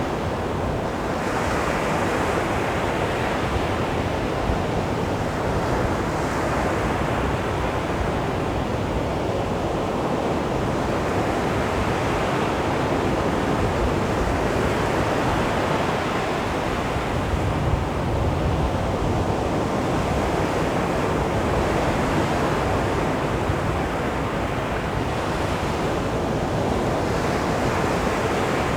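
Sea waves breaking and washing up a beach: a steady rush of surf whose hiss swells now and then as a wave comes in.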